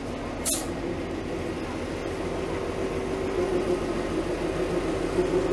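KSR ZDM-3 narrow-gauge diesel-hydraulic locomotive idling at a standstill, its engine hum growing louder and more pulsing toward the end. A short sharp hiss of air comes about half a second in.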